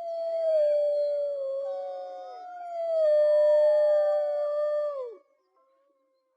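Several wolves howling together in long, overlapping howls at different pitches. The lowest howl slides down and the chorus breaks off a little after five seconds in.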